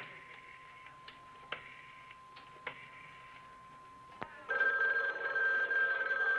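A few faint clicks, then about two-thirds of the way in a telephone's bell starts ringing loudly and steadily: a call coming in.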